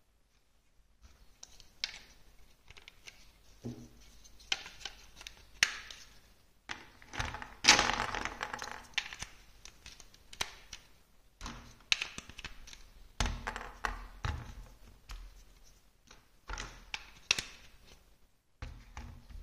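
Large plastic building blocks handled and pressed together: irregular clicks and clacks of hard plastic pieces fitting onto studs, with a denser, louder stretch of clattering about eight seconds in.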